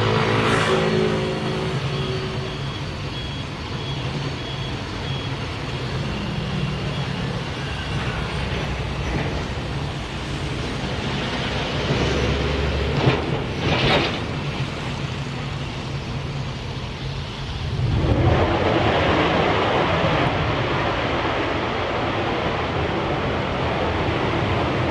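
Steady engine and vehicle noise with a couple of short louder bursts about thirteen seconds in; about eighteen seconds in it gives way to a louder, even rushing roar.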